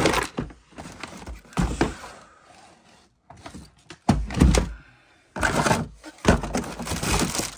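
Irregular thunks, knocks and clatter of objects being handled and shifted around, with louder clusters about halfway through and near the end.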